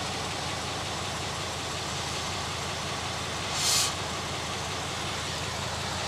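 An engine running steadily at idle, with one short burst of hiss a little past halfway through.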